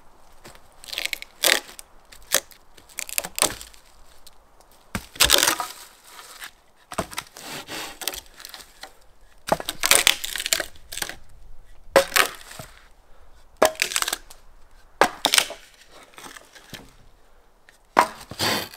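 Dry wood being worked by hand: irregular cracks, snaps and rough scraping strokes as logs are split and cut, with a few sharp loud cracks among them.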